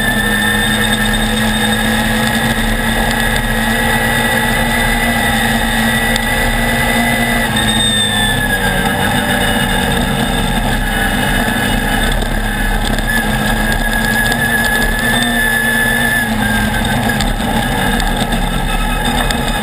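Off-road buggy's engine running at a fairly steady speed, its pitch rising and falling a little, under a constant haze of wind and road noise picked up by a camera mounted on the car.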